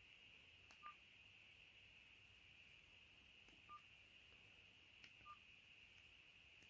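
TKEXUN G9000 flip phone's keypad beeping faintly, three short single-pitch beeps a couple of seconds apart, each with a faint click just before it, as menu keys are pressed.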